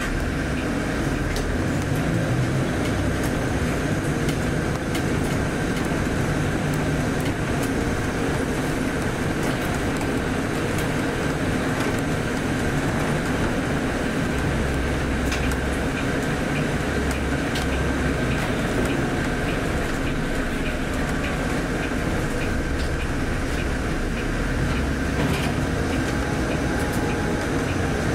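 Volvo B8RLE bus's rear-mounted six-cylinder diesel engine running, heard from inside the cabin as a steady rumble and noise with a faint high whine and occasional light rattles.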